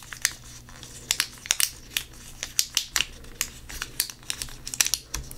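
Vinyl transfer sheet and its paper backing crinkling and crackling in quick, irregular sharp crackles as the backing is peeled off and the sheets are handled.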